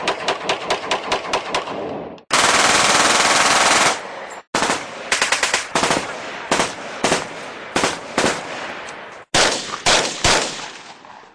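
Machine-gun fire. It opens with a steady burst of about five rounds a second, then a dense unbroken stretch of rapid fire lasting about a second and a half, then ragged, irregular bursts of shots that fade away near the end.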